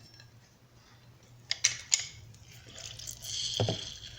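Lemon being squeezed into the smoothie: a few sharp clicks and knocks, then a short hiss of juice about three seconds in.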